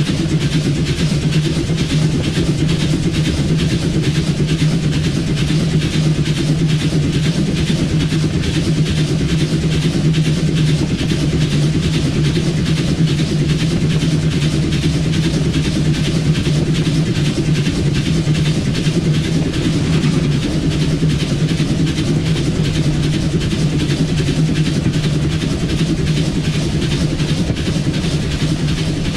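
Steady running noise of a train, heard inside the cab of the 1910 Swedish SJ E2 steam locomotive no. 1040, with a constant low hum under an even rushing noise.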